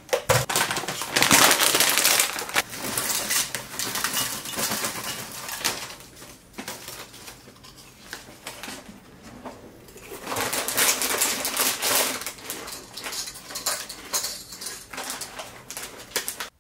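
Plastic snack packets crinkling and rustling as lentil chips are handled, poured into a bowl and another packet is worked open, a dense crackle with a quieter spell in the middle.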